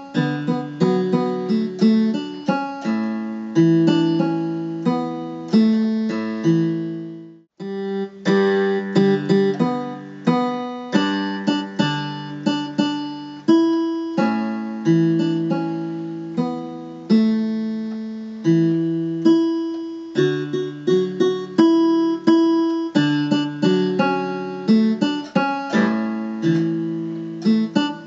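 Electronic keyboard on its steel-string acoustic guitar voice, played slowly: a plucked-sounding melody over sustained bass notes, each note dying away after it is struck. About seven seconds in the sound fades out for a moment before the playing resumes.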